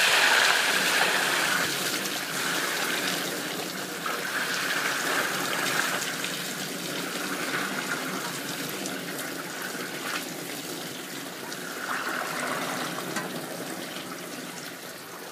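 Mucky fleece-wash water pouring out of a tipped stainless-steel wash tub and splashing onto a slatted drain tray. It starts suddenly at full flow and slowly tapers off as the tub empties.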